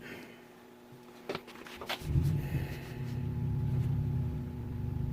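Four-wheel-drive truck heard from inside the cab: a couple of sharp clicks, then about two seconds in a low engine rumble swells up and keeps running.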